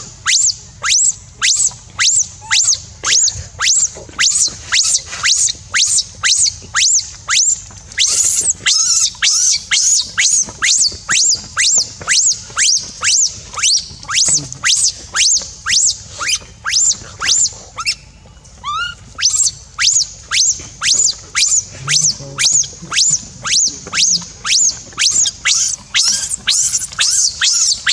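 Baby macaque crying: short, high-pitched squealing cries repeated about twice a second, with a short break a little over halfway through.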